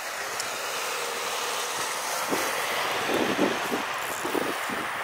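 Street traffic: a vehicle drives past, its tyre and engine noise swelling over the first few seconds and easing off toward the end.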